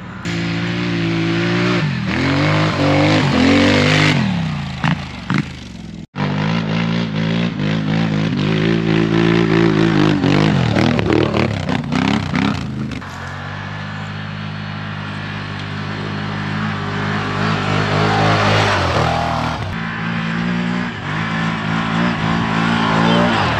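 ATV engines revving hard under load as quads climb a steep grassy hill, the pitch rising and falling with the throttle, then holding steadier in the second half. The sound cuts out for an instant about six seconds in.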